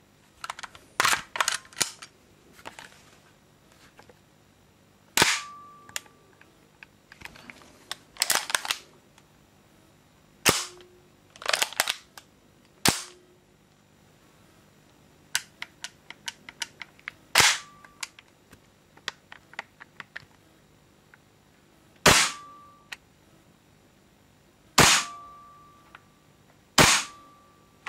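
Hand-worked mechanism of a WE SMG-8 gas blowback airsoft SMG: a series of sharp metallic clacks, several with a short ring, scattered among clusters of lighter clicks from the fire selector and trigger.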